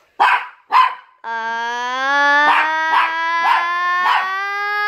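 A dog barks twice, then a long, slowly rising howl sets in, with barks about twice a second over it.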